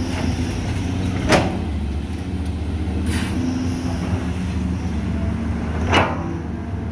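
Diesel engine of a CAT hydraulic excavator running steadily, loading soil into a dump truck. Two sharp knocks from the bucket and its linkage come about a second in and near the end, with a fainter one in between.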